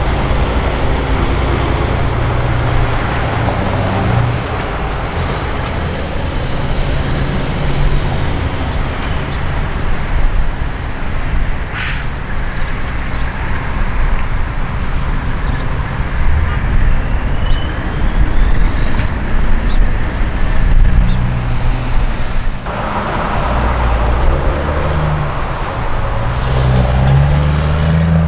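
Diesel engines of semi-trucks running as tractor-trailers roll past at low speed, their sound rising and falling, with one short sharp air-brake hiss about twelve seconds in.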